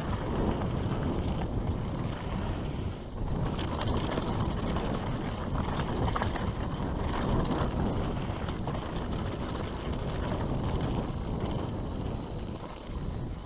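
Mountain bike riding fast down a rough dirt trail: wind buffeting the microphone, tyres running over dirt and rocks, and the chain and frame rattling with many short clicks and knocks over the bumps.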